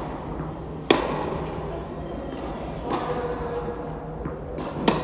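Tennis ball struck by racquets and bouncing on an indoor hard court during a rally: sharp pops, each with a short ring of hall echo, the loudest about a second in and another near the end.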